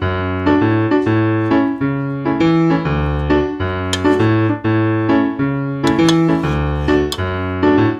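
Background piano music, its bass notes and chords changing about twice a second in a steady rhythm.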